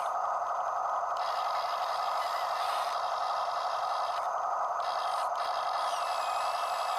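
Huina 1573 RC toy excavator's electric motors and gears whirring steadily, with a higher-pitched whir that cuts in and out a few times as different functions are worked.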